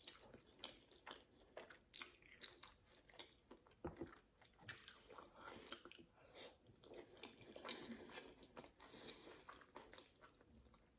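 Close-miked chewing and biting of grilled braai meat: a steady run of small mouth clicks and smacks, with a few sharper bites.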